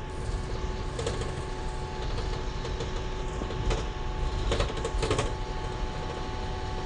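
Cabin noise inside a moving Isuzu Almazora minibus: steady engine and road rumble with a faint steady whine. Short rattles of the body and fittings come about a second in and again around four and five seconds.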